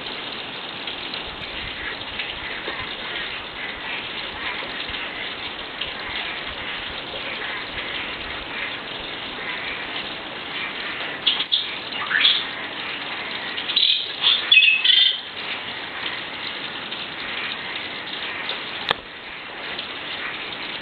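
Forest ambience: a steady hiss with bird chirps over it. The chirps are short and rise in pitch, with a few about eleven to twelve seconds in and a louder cluster about fourteen to fifteen seconds in.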